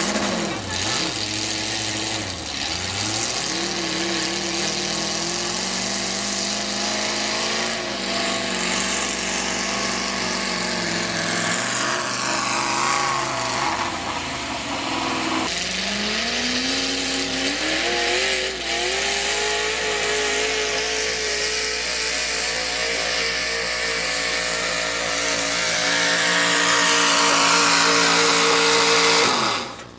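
Modified-class pulling tractor engines at full throttle under load, pitch wavering in the first half. About halfway the sound changes abruptly, then the engine pitch climbs steadily for a few seconds and holds high, growing louder near the end before cutting off suddenly.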